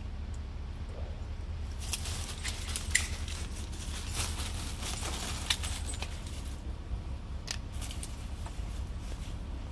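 Dry leaf litter and palmetto fronds crunching and rustling underfoot, a run of sharp crackles from about two seconds in to about six, with a few more near the end. A steady low rumble lies underneath.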